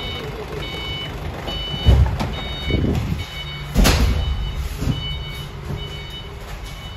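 A vehicle reversing alarm beeping over and over, a little faster than once a second, with heavy thuds of cartons being handled in a steel shipping container, the loudest about four seconds in.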